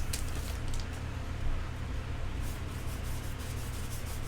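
Faint rubbing and light ticks of trading cards being slid and handled, over a steady low hum.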